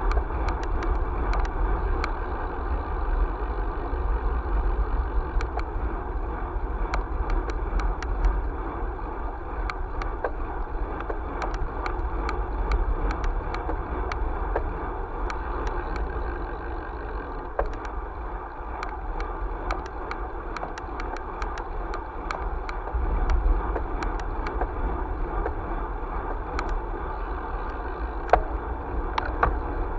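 Wind rumbling on the microphone of a camera riding along an asphalt road, over steady tyre and road noise, with frequent small ticks and rattles scattered throughout.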